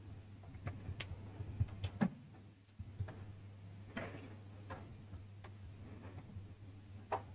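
Pen writing on paper on a tabletop close to the microphone: irregular light taps and short scratching strokes, over a steady low electrical hum.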